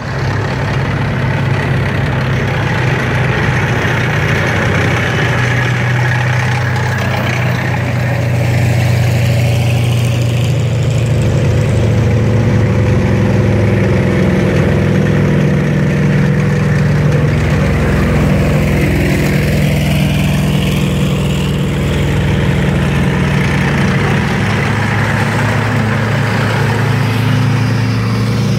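Sherman tanks driving past one after another, their nine-cylinder radial engines running steadily and loudly.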